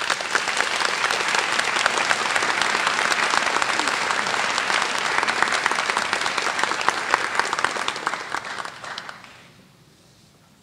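Audience applauding: many hands clapping together, dying away about nine seconds in.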